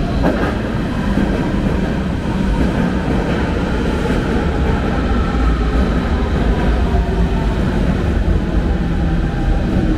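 Berlin S-Bahn electric train running alongside the platform: a loud, steady rumble with faint steady whining tones above it, and a sharp clatter right at the start.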